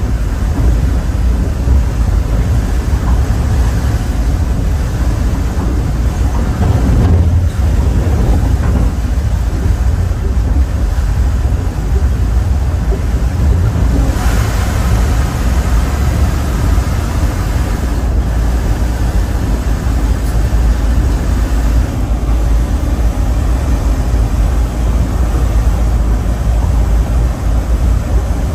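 Caltrain commuter train running at speed, heard from on board: a steady low rumble of wheels on rail, with a brief rise in hiss about halfway through.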